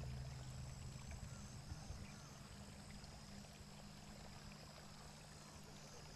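Near silence: a faint steady hiss with a low hum, as music fades out at the start.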